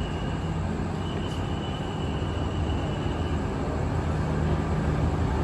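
Alsthom diesel-electric locomotive's engine running with a steady low drone, growing slightly louder toward the end.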